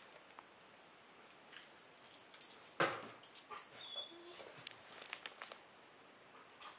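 Old English Sheepdog nosing into a cardboard box of kittens: scattered short sniffs and rustles, with one louder huff about three seconds in.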